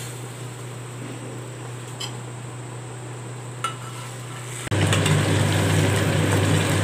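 A metal spoon and spatula clink faintly and scrape in a steel pan as ground chana dal is stirred into jaggery syrup. About two-thirds of the way in, the sound jumps abruptly to a louder, steady sizzle as the jaggery and dal filling simmers on the flame while being stirred, still cooking down to thicken.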